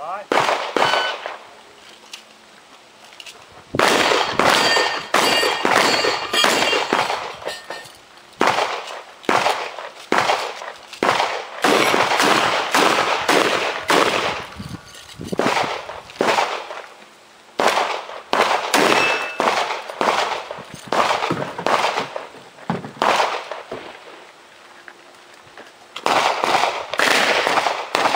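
Strings of gunshots fired in quick succession, with pauses of a couple of seconds near the start and again about three-quarters of the way through; some hits ring off steel targets.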